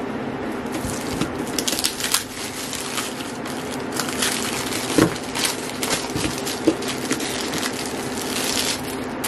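Clear plastic wrapping crinkling and crackling as it is handled and pulled off a gift box, in irregular rustles with a few sharper crackles, the sharpest about five seconds in.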